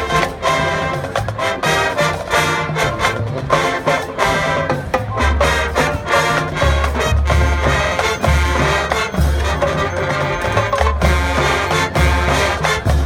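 High school marching band playing: brass ensemble with drumline hits and long, held low brass notes.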